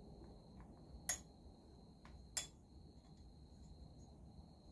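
Two sharp clicks about a second and a half apart, the second louder: hands working on a chainsaw engine on a workbench during a port-timing check with a degree wheel.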